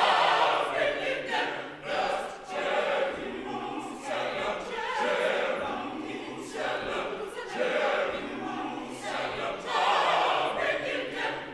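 Gospel choir singing a spiritual full-voiced, many voices together, swelling loudest at the start and again near the end.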